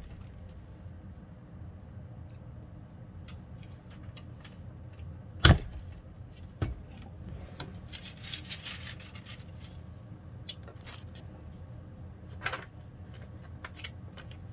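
Heat press being worked by hand: a sharp clunk about five and a half seconds in, a lighter knock a second later, a stretch of rustling, and another knock near the end, over a low steady hum.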